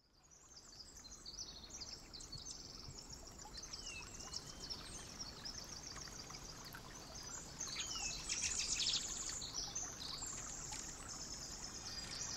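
Woodland ambience: small birds chirping and trilling, with a few short whistled slides, over a soft steady hiss. It fades in at the start and is busiest about eight seconds in.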